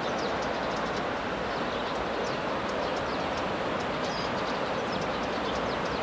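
Steady rushing noise of the Guadiana River in flood, its fast brown water running high along the bank.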